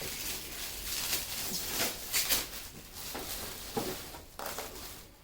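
Gift wrapping and packaging rustling and crinkling as it is handled and pulled open, in irregular bursts.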